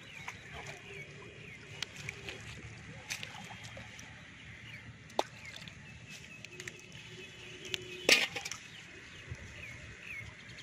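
Scattered light clicks and rustles of small fish and a nylon net being handled as fish are picked out of the mesh, with faint bird chirps; one louder sharp clatter about eight seconds in.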